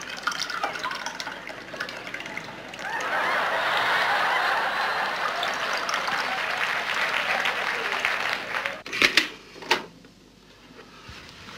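Tea being poured from a teapot into cups: a steady splashing pour lasting several seconds. Two sharp knocks follow near the end.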